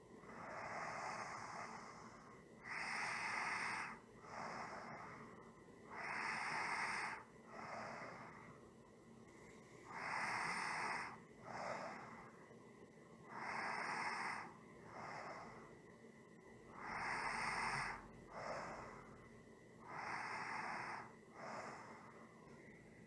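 A person breathing slowly and evenly, about one breath cycle every three and a half seconds. Each cycle has a longer, louder airy breath followed by a shorter, softer one.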